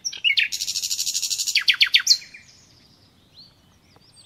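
A small bird singing: a fast, buzzy trill about half a second in, then a few quick falling notes and softer scattered chirps.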